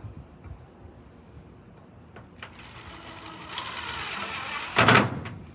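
Cordless drill/driver running a screw through a sheet-metal channel into the metal sign. The motor whirs for about two seconds, growing louder, and ends in a brief loud burst about five seconds in.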